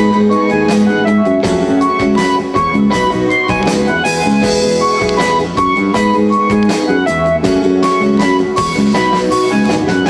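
A live band playing a song's instrumental intro: guitar and keyboard over drums, with no singing yet.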